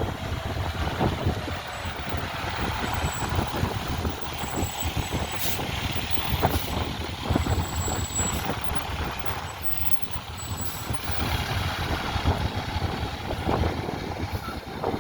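Fire truck's engine running, with wind buffeting the microphone.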